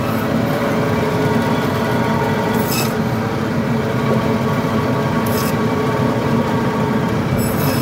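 Electric band saw running with a steady motor hum while its blade cuts through grass carp, with three short rasping cuts spaced a couple of seconds apart.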